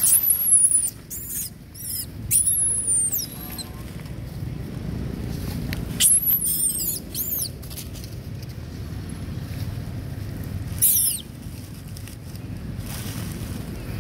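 Young long-tailed macaque squealing: very high, thin squeaks that waver and fall away at the end, in four short bouts, at the start, about two seconds in, from about six seconds, and near eleven seconds.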